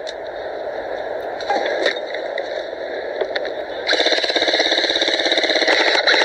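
Airsoft machine gun firing a long rapid burst, a fast even rattle of shots, starting about four seconds in over a steady hiss.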